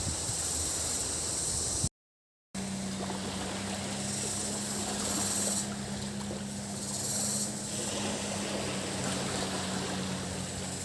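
Waves washing on a beach with cicadas buzzing high and steady, their buzz swelling and fading in the middle. The sound drops out completely for about half a second near two seconds in; after the gap a steady low motor hum runs under the surf.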